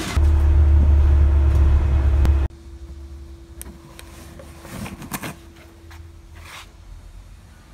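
A loud low rumble for about two and a half seconds that cuts off suddenly, then a steady hum with a few sharp clicks as the handle of a uPVC door is worked and the door is opened.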